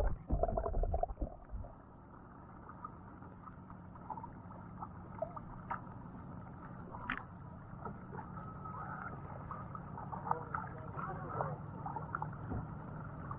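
A short rush of muffled underwater noise at the start, then soft water lapping and dripping around a kayak being paddled, with small scattered splashes.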